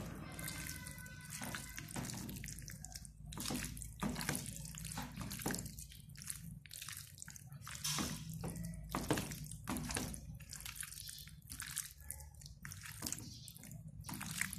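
A hand squishing and kneading raw bite-sized chicken breast pieces in black pepper sauce, chilli powder and salt. The wet squelches come irregularly, several a second.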